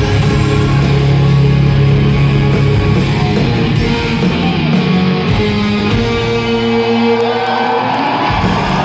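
Live rock band with electric guitars playing the closing chords of a song at full volume; the bass falls away about eight seconds in, leaving the higher held notes.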